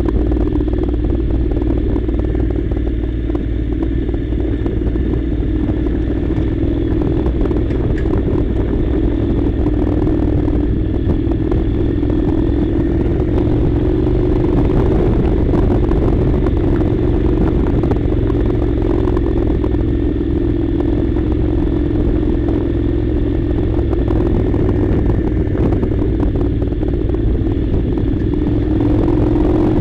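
Honda NC700's 670 cc parallel-twin engine running steadily under way at an even pitch, with small swells in level.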